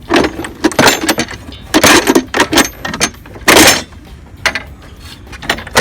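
Plastic parts being worked loose and lifted by hand: a series of short scraping and clattering noises, the loudest about three and a half seconds in.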